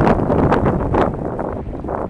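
Wind buffeting the microphone in gusts, easing off in the second half.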